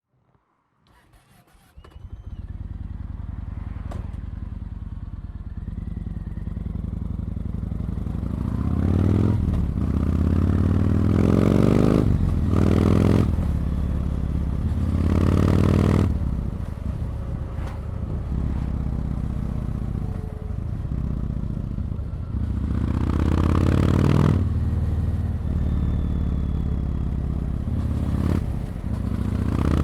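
Yamaha MT-01's 1670 cc V-twin engine, running with a steady low beat from about two seconds in, then from about eight seconds in revving in several surges that rise in pitch and get louder.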